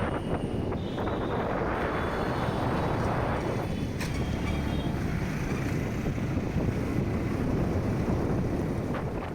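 Steady rushing noise with wind buffeting the microphone, heavy in the low end.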